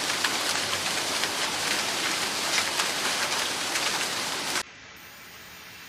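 Heavy storm rain pelting down in a dense, steady hiss with fine pattering of drops. About four and a half seconds in it cuts off abruptly, leaving a much quieter steady hiss.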